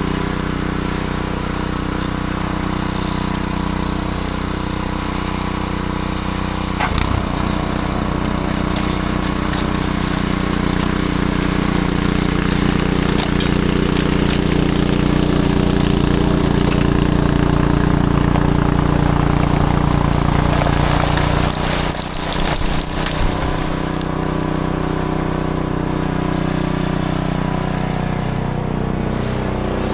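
Gasoline snowblower engine running steadily, its note shifting about seven seconds in, with a brief uneven stretch a little past the middle.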